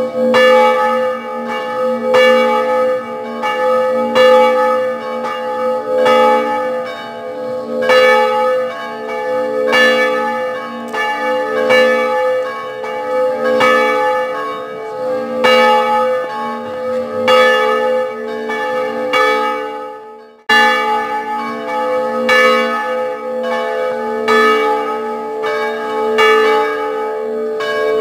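Church bells ringing, struck over and over about once a second, with the tones ringing on between strokes. The ringing drops out briefly about two-thirds of the way through and then resumes.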